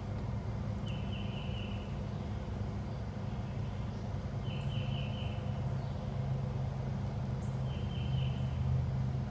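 A bird sings a short phrase of three or four quick high notes, three times about three seconds apart, over a steady low rumble.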